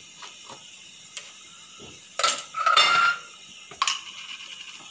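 Stainless steel pot shifted on a gas stove's metal grate: about two seconds in, a second of metal scraping with a squeak and clinks, then a single sharp click a little before the end.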